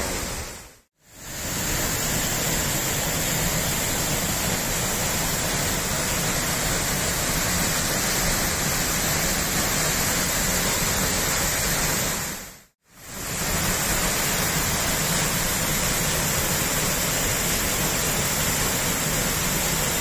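Waterfall on a mountain stream, water pouring down a rock face into a pool: a steady, loud rush. It drops out briefly twice, about a second in and again about two-thirds of the way through.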